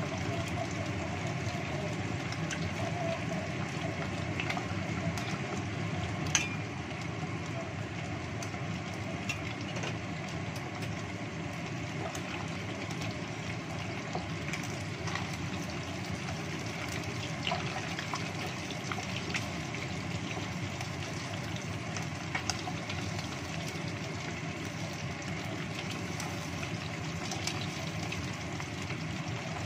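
Chicken wings deep-frying in a small pot of hot oil: a steady sizzle with scattered small pops and clicks, one sharper click about six seconds in.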